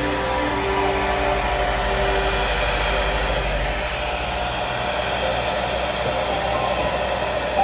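Handheld hair dryer running steadily, blowing a continuous stream of air.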